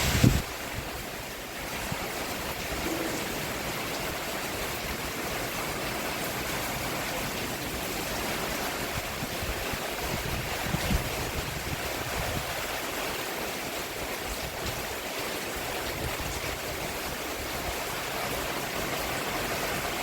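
Steady rain falling on a roof, an even hiss, with a brief louder low thump just after the start and a fainter one about halfway through.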